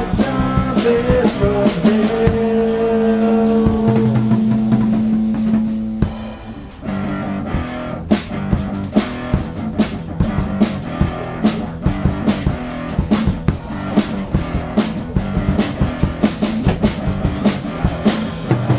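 Background rock music with guitar and drums: held guitar notes at first, a brief drop about six seconds in, then a steady drum beat.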